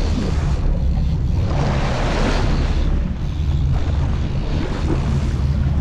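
Boat engine running steadily on a sportfishing boat at sea, with wind buffeting the microphone and waves washing along the hull; a louder rush about two seconds in.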